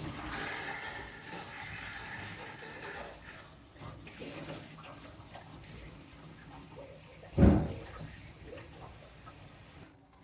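Water running and hissing through plumbing as the supply is turned on to newly connected feed lines, loudest in the first few seconds. A single loud thump comes about seven and a half seconds in.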